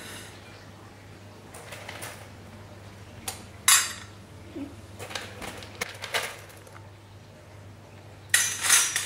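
Pieces being dropped into and handled in a stainless steel mixing bowl: scattered clinks and knocks, a sharp one near four seconds in, and a louder cluster of clatter near the end.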